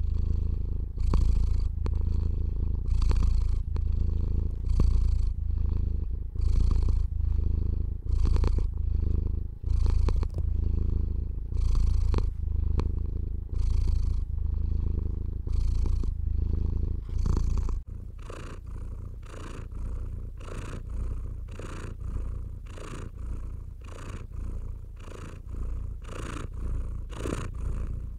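Domestic cat purring close up, a low rumble that swells about once a second. About 18 seconds in it cuts to a quieter purr pulsing about twice a second.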